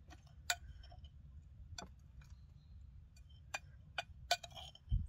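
A metal spoon clinking against a ceramic bowl about five times, at irregular intervals, while scooping out walnut filling.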